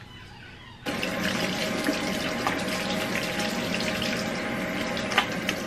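Kitchen faucet turned on about a second in, water running steadily into a stainless-steel sink as soapy hands are rinsed under it.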